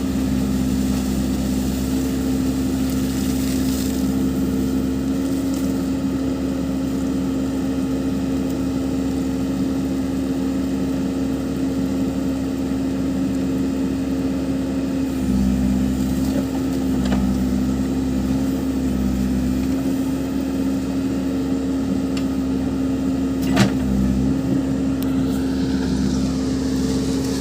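Case backhoe loader's diesel engine running at a steady note while the machine works. The note shifts briefly a couple of times, and a single sharp knock comes about three quarters of the way through.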